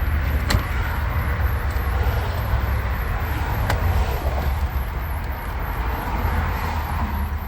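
Steady low rumble throughout, with two sharp clicks, one about half a second in and one near four seconds in.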